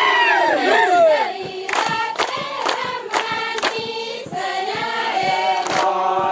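A group of voices singing together, with sharp strikes about two a second in the middle, then several voices holding long notes near the end.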